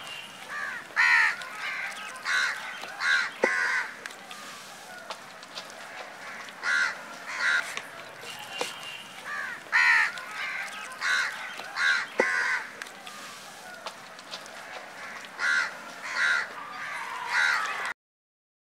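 Crows cawing again and again, short harsh calls coming in clusters of two or three, stopping abruptly just before the end.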